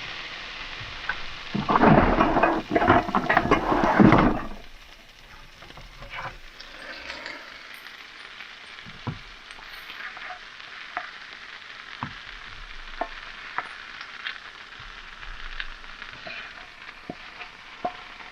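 Chicken, potatoes and carrots with melting cheese sizzling in a skillet, with a few seconds of loud stirring and scraping in the pan starting about a second and a half in. After that the sizzle settles lower, with scattered small pops.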